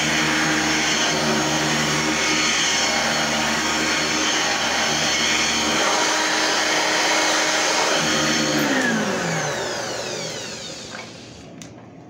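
Singer SST-315 6.2-amp upright vacuum cleaner running steadily, then switched off about two-thirds of the way through; its motor whine falls in pitch and fades as it spins down.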